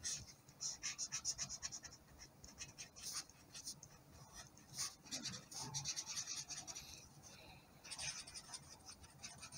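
A marker scribbling on paper, colouring in with runs of quick back-and-forth strokes and short pauses between them. Faint and scratchy.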